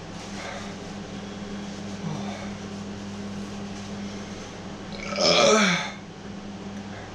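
A man makes one loud, throaty vocal sound, falling in pitch and lasting under a second, about five seconds in, over a steady low hum.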